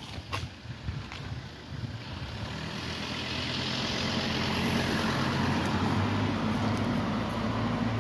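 A car driving through a vaulted stone gate passage, its engine and tyres on the paving swelling over the first few seconds and then holding steady.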